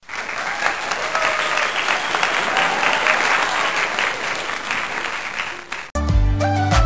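Crowd applause, a dense steady clapping, that cuts off sharply about six seconds in, where a pop song starts with a heavy bass line.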